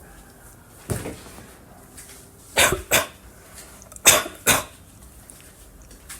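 A person's deep hiccups, set off by eating Jolo chips: one hiccup about a second in, then two quick pairs of hiccups, the loudest near the middle.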